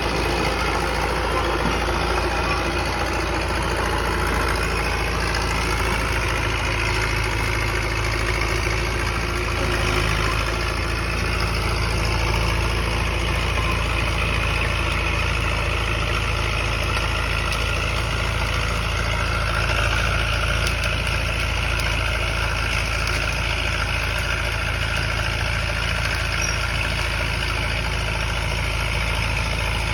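Caterpillar D4E crawler dozer's diesel engine running steadily.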